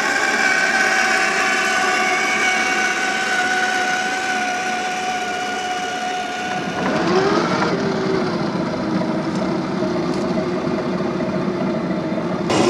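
Electric motor and gearbox of a Traxxas TRX-4 Land Rover Defender RC scale crawler whining as it drives. The whine holds steady, then shifts to a lower pitch with a brief rise and fall a little past halfway.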